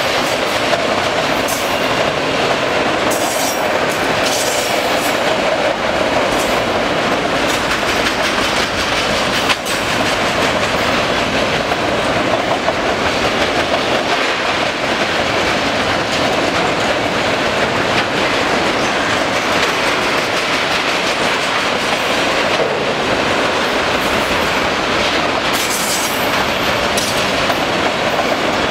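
Empty autorack freight cars rolling past at speed: a steady rumble and rattle of steel wheels on the rails, with occasional sharp clicks.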